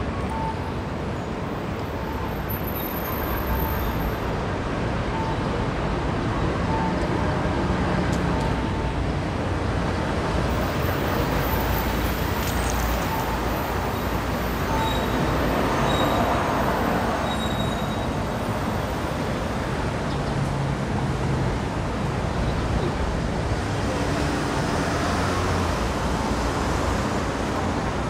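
City street traffic noise: a steady roar of road vehicles passing. A short beep repeats about once a second through the first half, and a few higher beeps come just past the middle.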